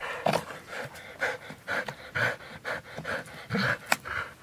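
A dog breathing hard in short, rapid pants, about two a second, through jaws clamped on a stick while it hangs by its teeth. There is one sharp click near the end.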